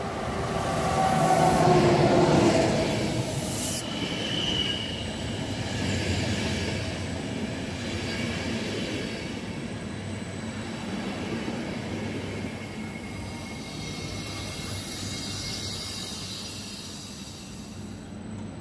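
An electric locomotive passing close with a falling whine, followed by a long rake of ÖBB passenger coaches rolling steadily past along the platform. Short wheel squeals ring out about four seconds in and again faintly near the end.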